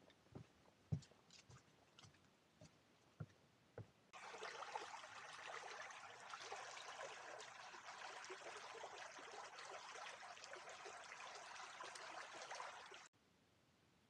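A few soft, irregular footsteps on a wooden boardwalk, then, about four seconds in, the steady rush of a shallow river running over riffles, which cuts off suddenly near the end.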